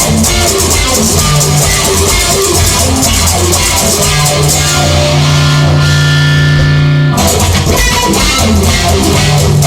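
Rock band playing an instrumental break with electric guitar and drum kit, no vocals. About four seconds in a chord is held while the cymbals fade, then the full band comes crashing back in about seven seconds in.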